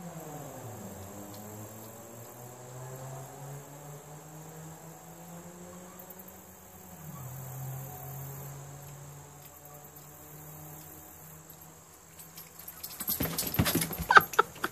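A low, steady droning tone that slides down at the start and drops lower about seven seconds in. Then, about a second before the end, a sudden loud noisy scuffle of two dogs play-fighting.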